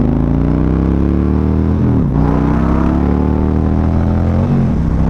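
2023 Harley-Davidson CVO's V-twin engine accelerating as the motorcycle is ridden: the engine note rises, drops with an upshift about two seconds in, rises again and drops with a second upshift near the end.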